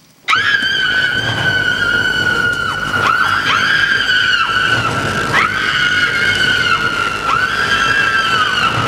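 Shrill sustained tone with overtones on a horror film's soundtrack. It starts suddenly and several times dips in pitch and slides back up.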